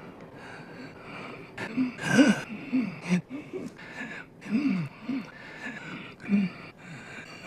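A man gasping and wheezing for breath in a string of short, strained vocal sounds, as in an asthma attack. The loudest is about two seconds in.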